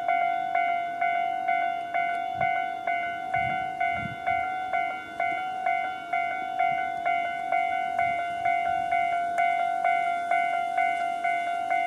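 Japanese railway level crossing's electronic warning bells ringing in their standard tone, a repeated ding about twice a second that decays after each strike.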